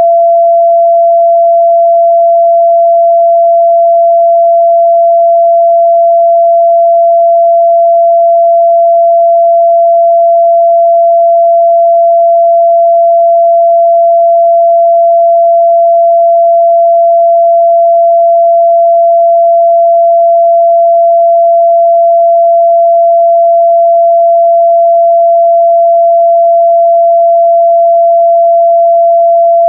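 A steady, loud 678 Hz sine-wave test tone, one pure pitch held unchanged.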